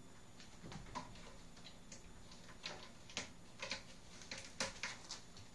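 Faint, irregular clicks and taps of a cat's claws and a small plush toy mouse on a hard floor as the cat plays, coming more often in the second half.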